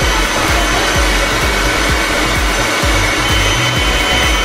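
Leaf blower running steadily, blowing air into a giant balloon to inflate it, with an uneven low rumble underneath.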